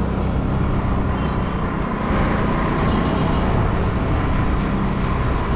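Steady traffic and vehicle noise with a heavy low rumble and no distinct single event.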